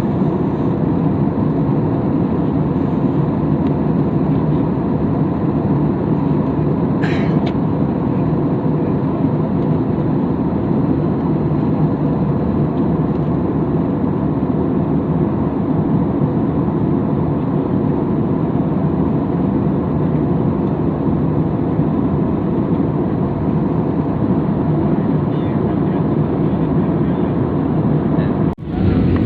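Steady, even engine and airflow noise inside a jet airliner's cabin in flight, with a brief sharp drop just before the end.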